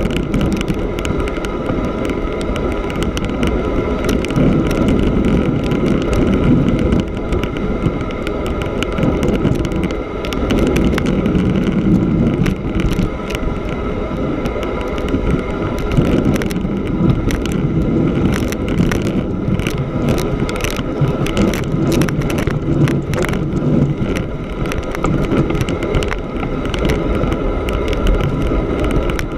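Studded-tyre bicycle rolling steadily over snow on frozen lake ice: a continuous rolling rumble with many small clicks and rattles throughout.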